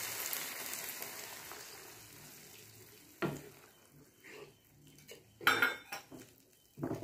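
Cornflour-and-water slurry sizzling as it is poured into a hot non-stick pan of frying vegetables, the hiss dying away over the first three seconds. A sharp knock comes about three seconds in, then a wooden spatula scrapes and stirs the thickening sauce around the pan.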